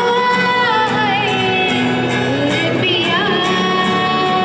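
A woman singing into a microphone to acoustic guitar accompaniment, holding long notes and sliding between them.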